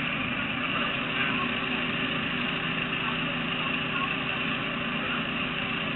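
A vehicle engine idling with a steady, unchanging hum.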